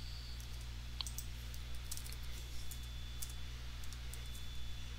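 Typing on a computer keyboard: light, irregular key clicks over a steady low hum.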